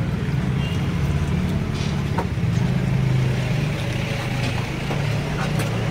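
A motor vehicle's engine running steadily, a low hum, with a few faint clicks.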